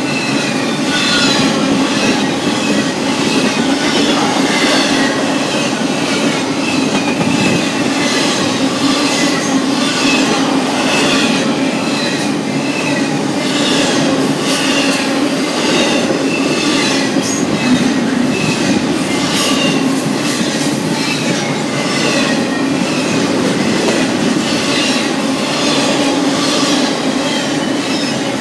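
Double-stack container well cars of a long freight train rolling past at speed: a loud, steady rumble and rattle of steel wheels on rail, with a regular wheel click about once a second.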